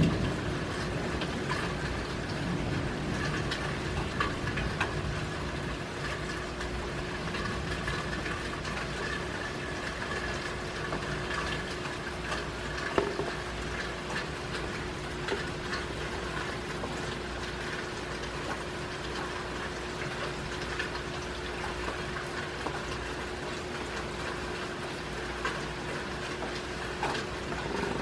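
Steady rain falling, with scattered drips and taps, over a steady hum.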